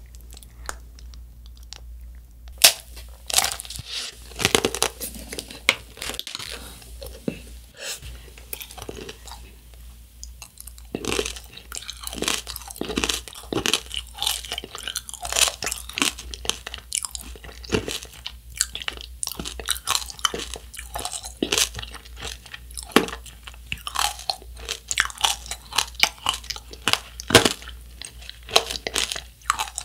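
A macaron coated in a hard sugar-candy tanghulu shell being bitten and chewed: many sharp crunches as the candy shell cracks between the teeth. The crunches are scattered at first and come thick and fast from about eleven seconds in.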